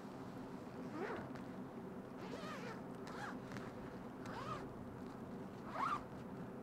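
A tent door zipper being pulled open from inside in about five short strokes, each a quick rising zip, the last and loudest near the end.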